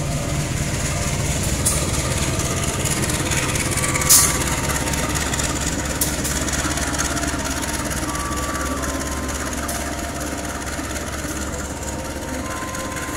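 A train running slowly along the station track below, giving a steady low rumble, with a single sharp clank about four seconds in.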